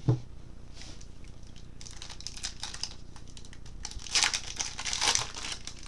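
Crinkling and tearing of a trading-card pack wrapper being opened by hand, in irregular bursts that grow loudest twice near the end.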